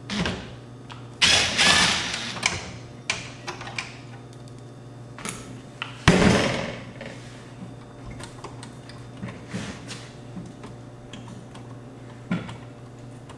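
Hands and tools working on an AV receiver's metal chassis while removing a circuit card: scattered clicks, scrapes and knocks of metal parts, loudest about six seconds in, over a steady low hum.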